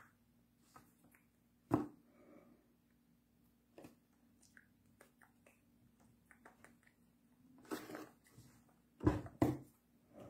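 A few scattered sharp knocks and taps, the loudest two close together near the end, from hands striking against the body and each other while signing, over a faint steady hum.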